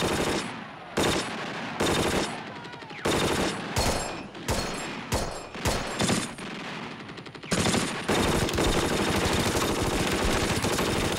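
Battle gunfire: irregular single rifle shots, roughly one a second, then sustained automatic machine-gun fire from about seven and a half seconds in, cutting off abruptly.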